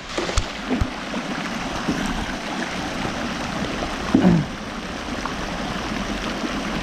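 Steady rush of running water at a swimming pool, with a few light clicks in the first second and a brief louder sound falling in pitch about four seconds in.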